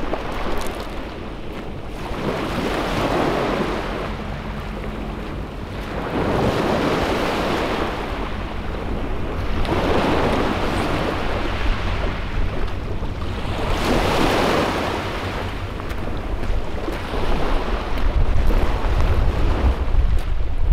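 Small waves washing onto a shingle beach, the surf noise swelling and fading about every three to four seconds. Wind buffets the microphone, most strongly near the end.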